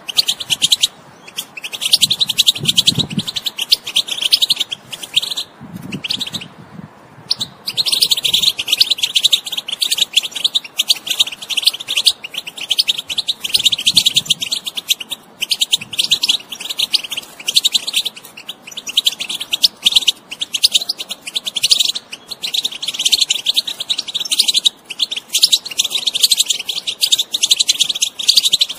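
European goldfinch singing a fast, continuous twittering song, with a few short breaks in the first seven seconds or so.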